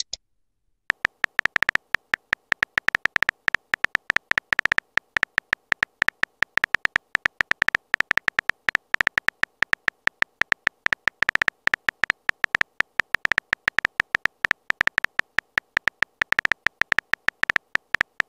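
Texting-app keyboard sound effect: a rapid, uneven string of short synthetic key clicks, several a second, one per letter as a message is typed. The clicks start about a second in.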